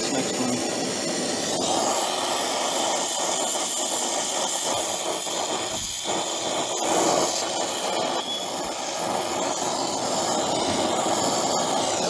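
Brazing torch flame hissing steadily while it heats a copper refrigerant line joint at an evaporator coil for brazing.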